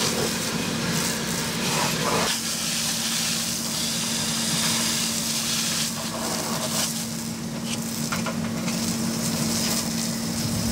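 Steady hiss of fire-hose water and steam on a burning fibreglass boat, over a constant mechanical hum.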